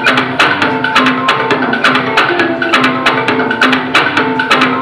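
Instrumental music with a steady percussive beat under a sustained melody.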